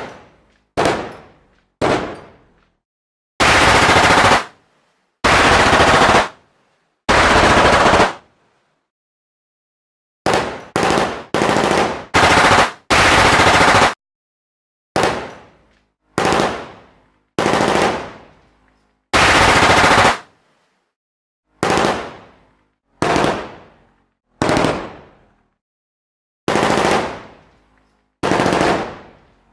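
Machine-gun fire sound effects: a series of separate bursts with silence between them. Some are short and die away quickly, and others are held for about a second.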